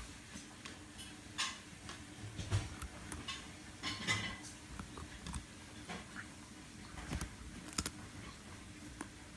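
A basenji gnawing and crunching a raw carrot: irregular crisp crunches and clicks with short pauses between bites, the loudest about two and a half and four seconds in.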